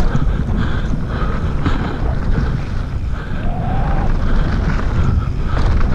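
Heavy wind rush on a handlebar-mounted camera's microphone as a mountain bike rolls fast down a dirt trail, with scattered knocks and rattles from the bike over the bumps.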